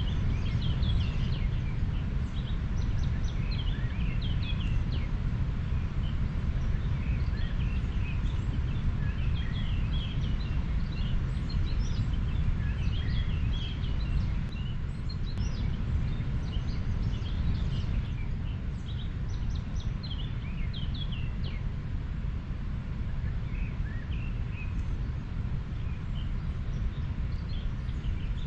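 River water flowing with a steady low rush, while small birds chirp and twitter throughout.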